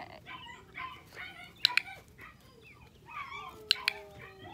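Three sharp double clicks, about two seconds apart, over birds chirping throughout.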